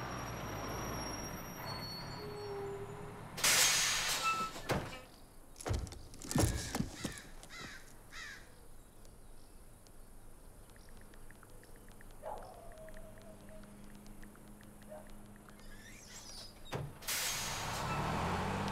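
Two loud rushing whooshes, one about three and a half seconds in and one near the end, with a cluster of sharp knocks and thuds after the first. In the quieter middle, faint quick taps of a finger typing on a phone's touchscreen keyboard.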